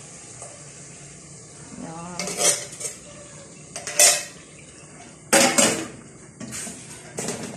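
Metal kitchenware clinking and scraping while cream is emptied from a tin can into a cooking pot: a utensil knocks against the can and the pot in several sharp clanks. The loudest clank comes about four seconds in, and another follows about a second and a half later.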